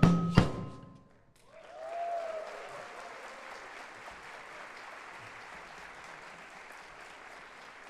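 A percussion group's drums strike the last two beats of a piece, and after a short pause the audience applauds, with a cheer or two about two seconds in. The applause then slowly dies down.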